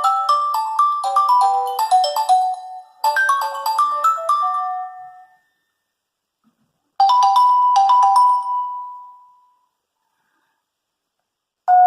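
Nokia 8110 4G ringtones played one after another. A quick melody of short notes in two phrases stops about five seconds in. After a pause a short two-note tone rings out, and after a second pause another ringtone begins near the end.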